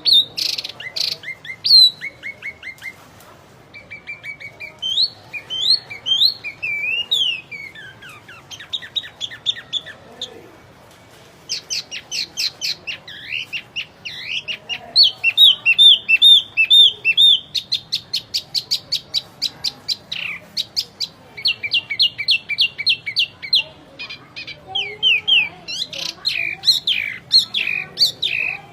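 Wambi songbird in full, continuous song: a fast, varied run of high chirps, trills and rapidly repeated notes, with short pauses between phrases. This is the kind of dense song Indonesian keepers play as a master recording to teach other cage birds.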